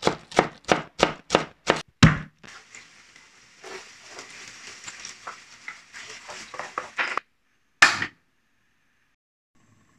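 Knife chopping spring onions on a wooden cutting board, about three quick strokes a second for the first two seconds. Then onions sizzling and crackling in hot oil in a frying pan. Near the end, one sharp click from a gas stove's burner knob being turned.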